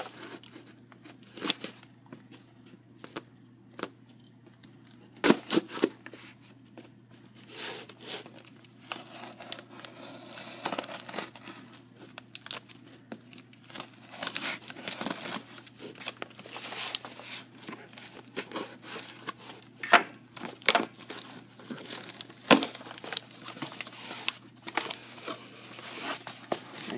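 Packing tape being cut with scissors and peeled off a cardboard box: irregular crinkling and tearing of tape and paper, broken by a few sharp clicks.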